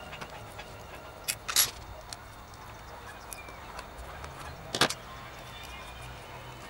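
Handling of a rusty metal petrol-lighter insert as a screw is worked in to pull out its old cotton wadding: a few sharp clicks and taps, the loudest about one and a half seconds in and just before five seconds, over a low steady hum.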